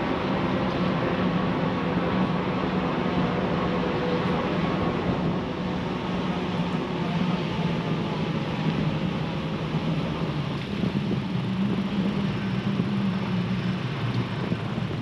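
Steady riding noise of an Aventon Adventure fat-tyre ebike in motion: wind on the microphone and tyre noise, with a steady low hum under it.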